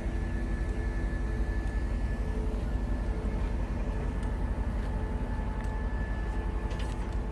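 Railway track maintenance vehicle running steadily: a deep, even rumble with a thin steady whine over it.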